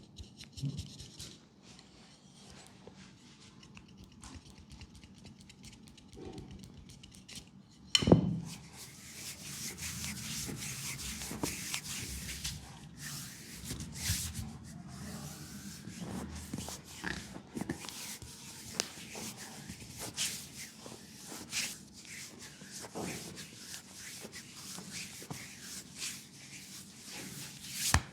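Massage rubbing on the skin of a leg: faint at first, then a thump about eight seconds in, followed by continuous rubbing and kneading with scattered small clicks.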